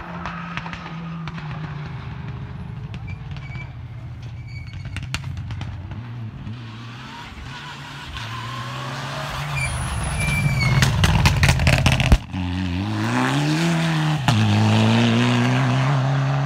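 Rally cars at full throttle on a stage, engine note climbing and dropping with gear changes as they approach. A burst of sharp cracks comes at the loudest point about two-thirds in, then a close engine revs up through the gears.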